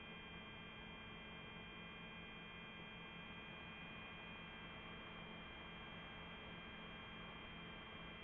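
Faint, steady electronic hum with a few fixed tones, low and high, and no change throughout: the electrical self-noise of a powered-up drone's recording, with no propellers running.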